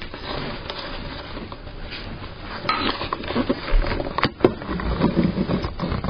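A small puppy scuffling about on fabric couch cushions: irregular crackly rustling and scratching of its paws, with soft thumps, growing louder about halfway through, and two sharp clicks a little past the middle.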